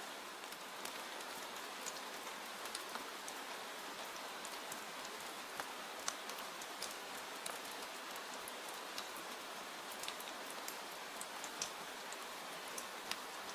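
Steady rain falling, an even hiss dotted with frequent sharp ticks.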